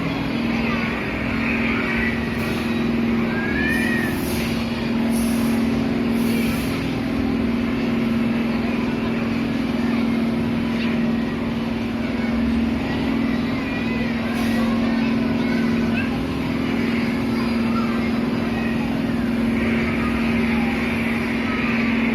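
Steady motor hum of a kiddie airplane ride, one low even tone that does not change, over the chatter and calls of a crowd with children's voices.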